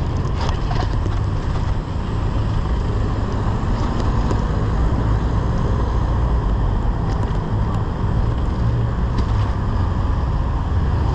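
Steady wind rushing over the microphone of a camera on a moving bicycle, over the rumble of car traffic alongside, with a few faint ticks.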